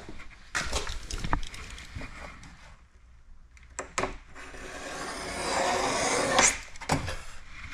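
Knocks and rubbing as paint protection film is handled on a wet glass cutting board. Then a utility knife blade is drawn along the film on the glass: a scraping stroke that builds for about two seconds and ends sharply, followed by a knock.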